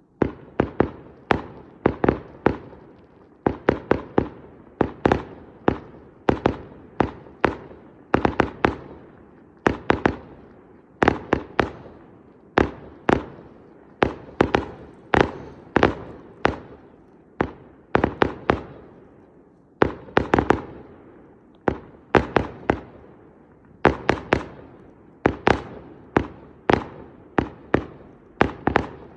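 Fireworks display: aerial shells bursting in rapid, uneven volleys of sharp bangs, often several a second, each trailing off briefly.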